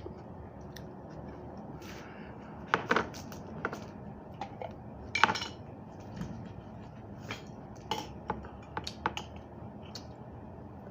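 Cutlery clinking and knocking against dishes in a dozen or so scattered, irregular taps; two are louder, about three and five seconds in.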